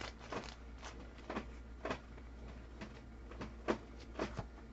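Trading cards being handled and sorted by hand: a run of about ten soft, irregular clicks and snaps, the sharpest a little past halfway.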